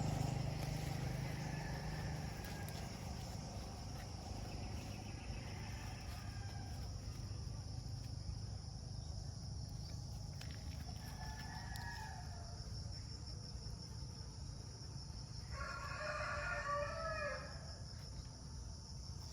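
A rooster crowing once near the end, one call of about two seconds, with a shorter, fainter call a few seconds before it, over a steady low background rumble.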